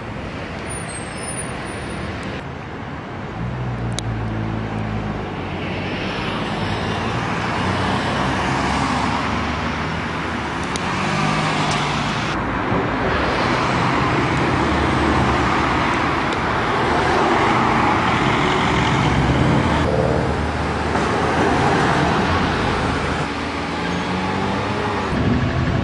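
Street traffic: motor vehicle engines running and passing close by, growing louder a few seconds in and staying loud.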